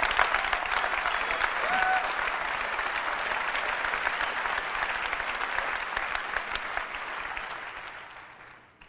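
Large audience applauding, dense clapping that fades away over the last couple of seconds.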